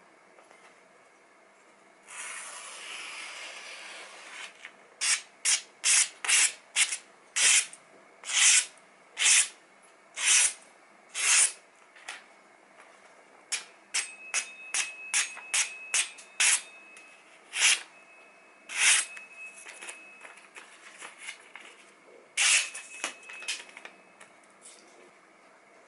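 A freshly sharpened kitchen cleaver slicing through sheets of paper in many short, crisp swishes. A run of about a dozen quick cuts comes first, then more scattered cuts, after a brief rustle of paper at the start.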